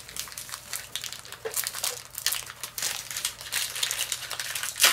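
Foil Yu-Gi-Oh booster-pack wrappers crinkling and rustling as packs are handled and opened, a run of quick, irregular crackles.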